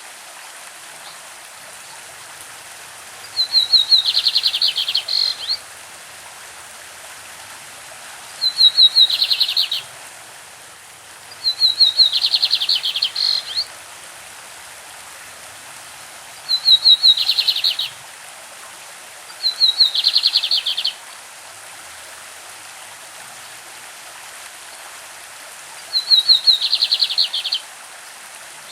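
Lined seedeater (bigodinho) singing its classic song: six short phrases of rapid, high repeated notes, each about two seconds long, several seconds apart. Between the phrases a stream runs steadily.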